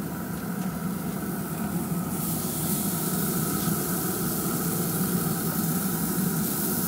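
Raw tuna steaks sizzling as they are laid onto the hot flat searing plate of a pellet grill set to 500°F. The sizzle swells about two seconds in as more fish goes down, over a steady low mechanical hum.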